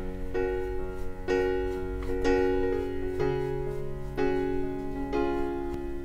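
Background piano music: chords struck about once a second over held bass notes.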